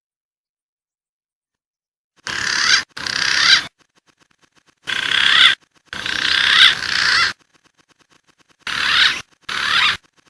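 Green pigeon (punai) calling in three pairs of warbling whistled phrases, starting about two seconds in, each phrase swelling louder as it goes, with a rough, noisy edge.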